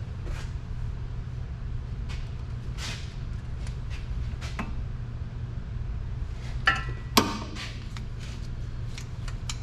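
Metal hand tools (socket, extension and ratchet) clinking and knocking against each other and the bolts, a few scattered clicks and then two louder ringing clinks about seven seconds in, over a steady low hum.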